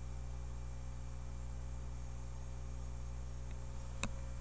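Steady low electrical hum with faint hiss, the background noise of the voice-over recording, with a single sharp click about four seconds in.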